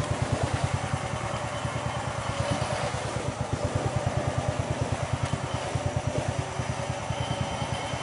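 Small boat engine running steadily with an even, rapid pulse.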